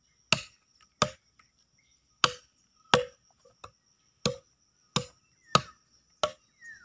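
Machete (bolo) chopping a wooden branch: eight sharp blade strikes, roughly one every three-quarters of a second. A faint steady high insect trill runs behind.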